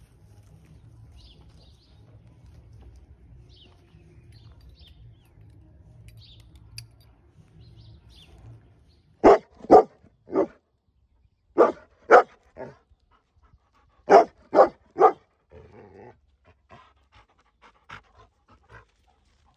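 Dog barking: about nine loud barks in three quick bursts of three, starting about halfway through, followed by several softer short barks or huffs. Before the barking there is only a low, steady rumble.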